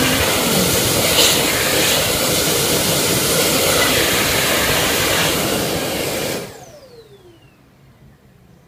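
Dyson Airblade hand dryer blowing a loud, steady rush of air over a hand. About six seconds in it shuts off as the hand is withdrawn, and the motor's whine falls in pitch as it spins down.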